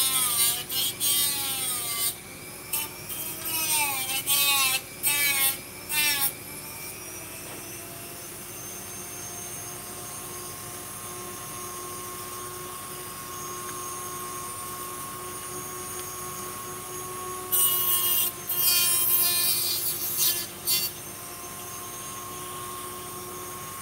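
Dremel rotary tool on a flex-shaft attachment grinding a plastic blaster part. Its whine dips and recovers in pitch as the bit bites into the plastic, in two bouts: through the first few seconds and again about three-quarters of the way in. In between and at the end it runs steadily with no load.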